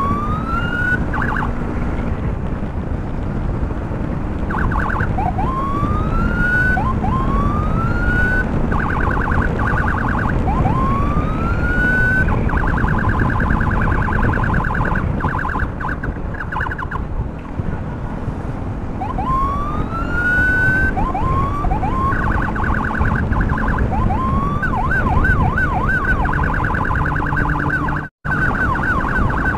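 Electronic emergency siren sounding short rising whoops, about a second each, that switch to a rapid pulsing warble and back, over heavy wind and motorcycle road noise. The sound drops out for an instant near the end.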